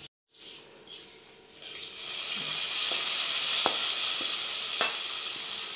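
Hot coconut-oil tempering of mustard seeds, dried red chillies, curry leaves and fried grated coconut sizzling as it is poured from a steel kadai into a clay pot of jackfruit curry. The sizzle starts about two seconds in and holds steady, with a few light clicks as the pan is scraped out.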